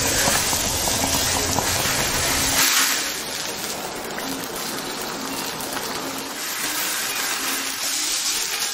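Broth boiling hard in an electric hotpot, with meat sizzling on the grill plate beside it: a dense, steady bubbling hiss. A low rumble underneath drops away about two and a half seconds in.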